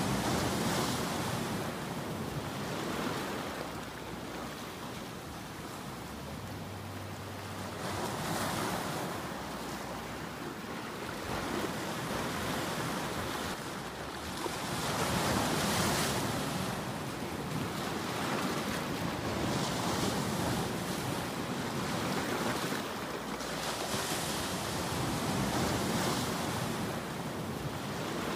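Ocean waves breaking, a steady rush of surf that swells and eases again every few seconds.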